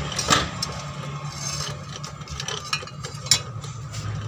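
Metal hand tool clinking and scraping on the car's underbody parts while working on the engine-mount bolts, with two sharper clinks, one just after the start and one near the end, over a steady low hum.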